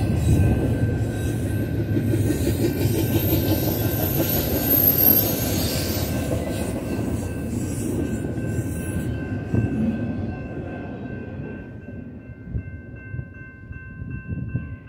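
A long freight train of double-stack container cars rolling past, with steady wheel-on-rail rumble and a thin, high wheel squeal a few seconds in. The rumble fades away over the last few seconds as the end of the train passes.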